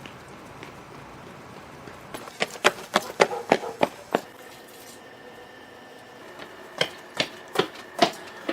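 A quick, uneven run of about a dozen sharp knocks on a hard surface, then after a pause five more, evenly spaced, near the end.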